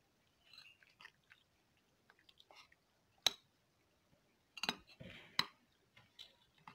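A spoon stirring powdered kunun tsamiya into a little water in a bowl. There are soft scraping sounds through the wet paste, and three sharp clicks of the spoon against the bowl in the second half.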